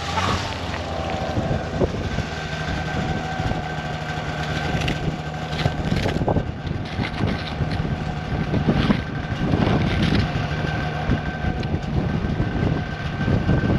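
Strong gusting wind rumbling on the microphone, with a steady engine hum underneath. Now and then come short scrapes and knocks as an ice scoop clears slush from an ice-fishing hole.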